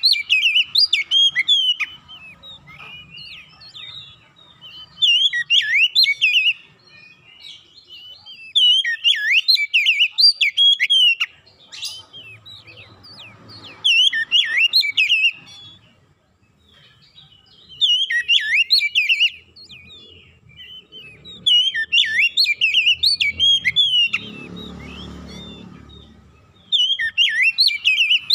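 Oriental magpie-robin (kacer) singing: repeated bursts of rapid, varied whistled phrases, each one to two seconds long, separated by short pauses.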